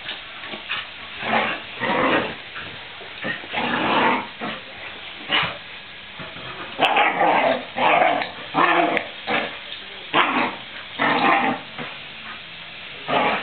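Dogs at rough play: an Australian Shepherd puppy and a bigger dog play-growling and yipping in a string of short calls, coming thicker in the second half.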